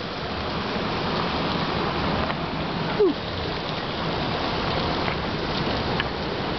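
Meat and vegetables sizzling on a hot iron griddle over a wood fire: a steady hiss with a few faint pops. About three seconds in, a brief falling-pitched sound is the loudest moment.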